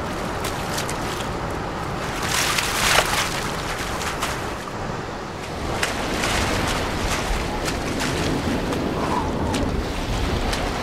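Steady rushing ocean-wave and wind ambience from an augmented-reality arctic scene's soundtrack, with a louder rush of noise about two to three seconds in.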